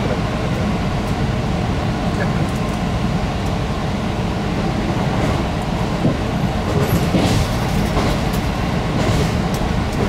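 JR Hokkaido KiHa 183 series diesel railcar running at speed, heard from inside the front car: a steady low running rumble, with short clicks of the wheels over rail joints and points from about halfway through.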